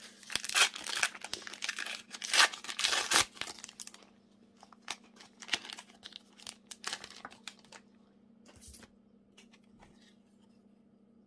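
A Topps Match Attax trading-card pack's wrapper is torn open and crinkled in hand, with loud tearing and crackling over the first four seconds. Lighter crinkling of the wrapper follows for a few seconds more, then only faint handling as the cards come out.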